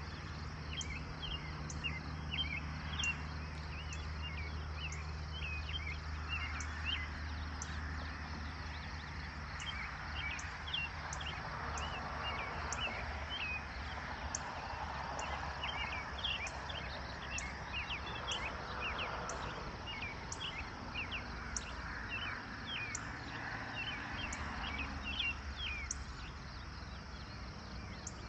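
Dawn chorus of birds chirping, with many short high chirps. Under it there is a faint regular high tick about once a second, and a low steady hum that fades after the first several seconds.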